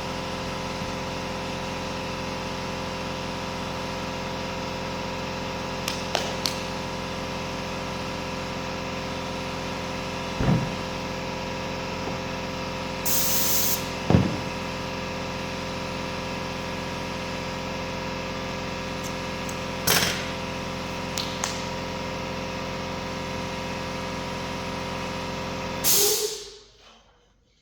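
A steady mechanical hum with a few knocks scattered through it and a short burst of hissing air about halfway through. The hum cuts off suddenly near the end.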